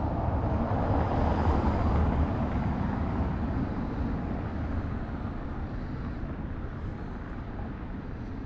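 Street noise with a low vehicle rumble that swells about a second or two in, then slowly fades.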